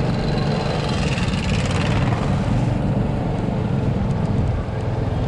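Steady motor traffic noise, with a low engine rumble and a brighter hiss swelling about one to two seconds in.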